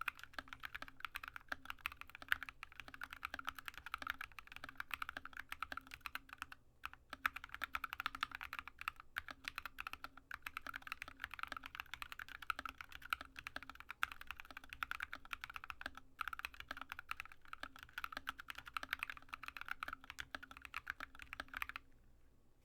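Typing on a Drop ALT low-profile mechanical keyboard with stock, unlubricated Alpaca linear switches and Drop MT3 keycaps: a fast, dense run of keystroke clacks with a few short pauses, stopping about a second before the end.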